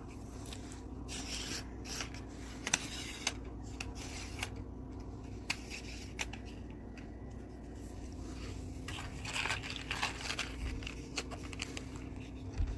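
Handling noise of a telescopic fishing rod being packed into its fabric carrying bag: scattered rubbing and scraping with small irregular clicks.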